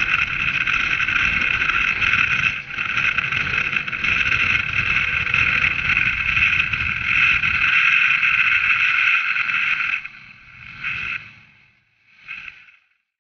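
Motorboat running at speed, its engine whine steady over the rush of wind and water. About ten seconds in the sound falls away abruptly, with two brief flare-ups before it goes silent.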